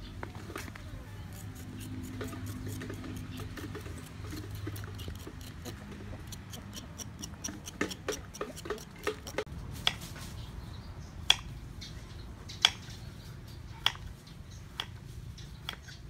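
Small kitchen knife working a fresh ginger root by hand: a run of small scraping clicks as the skin is peeled, then sharper single knocks of the blade about every second and a half.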